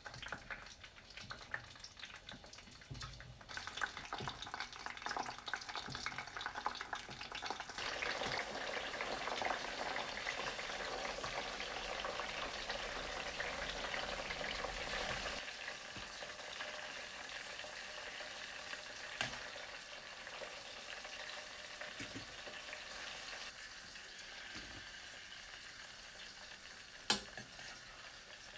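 Food sizzling as it fries in hot oil, with a steady crackling hiss that grows louder about eight seconds in and eases off again about halfway through. A single sharp click sounds near the end.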